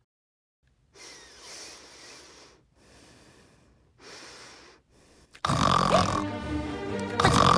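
Three breathy snores, each about a second long, after a second of silence. Just past halfway, much louder music with steady held tones comes in.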